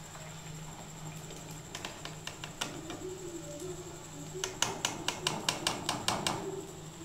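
Perforated metal skimmer clicking against a frying pan while fried jalebis are scooped out of the oil: a few scattered clicks, then a quick run of taps, about five a second, in the last few seconds.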